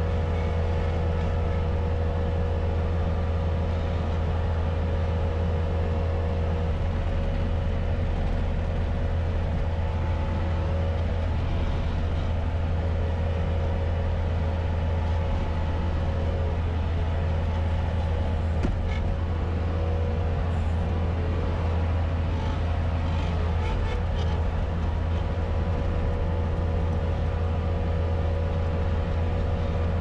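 Bobcat S250 skid-steer loader's diesel engine running steadily under load, heard from inside the cab as a constant low drone. A few faint clicks and knocks come in over it about two-thirds of the way through.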